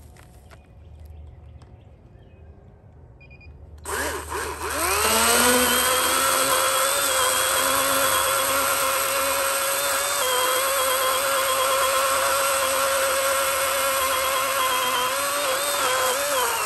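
Kobalt 80-volt cordless electric chainsaw starting about four seconds in: the motor and chain spin up quickly to a steady high whine. It then keeps running while cutting into a rotten log, the pitch dipping and wavering slightly as the chain bites.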